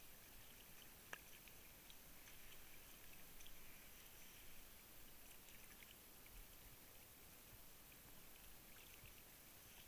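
Near silence: faint crackling and lapping of water against a waterproof camera housing sitting half under the surface, with one sharp click about a second in.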